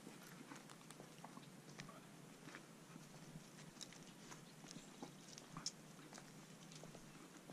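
Faint, scattered small clicks and scrapes of a French bulldog gnawing at a piece of wood and moving about on a dirt path.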